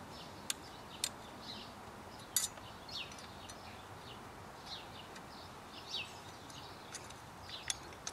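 A few sharp metallic clicks of a hex key working the screw of the pad retaining plate on a Kawasaki ZX-6R front brake caliper, with short bird chirps in the background.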